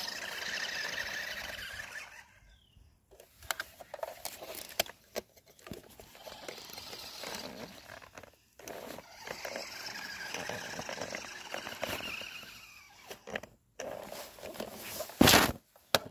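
Electric motor of an RC truck whining in bursts as it is driven, with near-quiet gaps between the bursts, scattered clicks, and a loud thump near the end.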